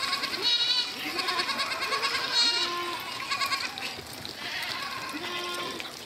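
A herd of goats bleating, with many wavering calls from several animals overlapping almost without a break.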